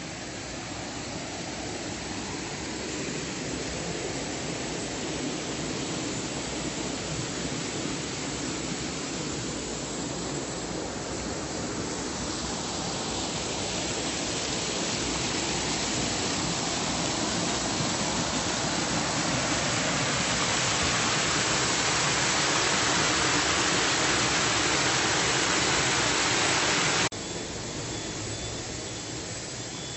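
Rushing river water: a steady rush that grows louder and brighter for most of the stretch, then cuts off suddenly near the end to a quieter rush.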